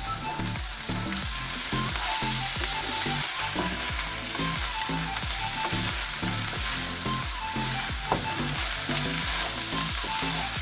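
Food sizzling steadily as it fries in a pan, with background music playing underneath.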